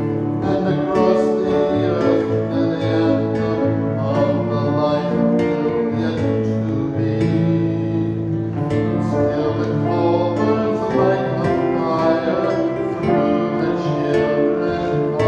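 A man singing a solo to guitar accompaniment.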